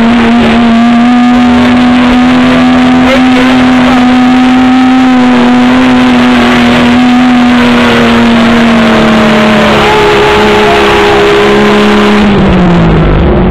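A mud-bogging Jeep's engine held at high revs under load as the Jeep ploughs through deep mud, a loud, steady engine note that drops lower about two-thirds through and falls away near the end.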